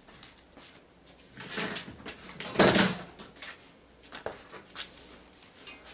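Handling sounds as a wooden pattern-making ruler is fetched and picked up on a cutting table: short rustling and clattering, loudest about two and a half seconds in, then a sharp knock and a few light clicks.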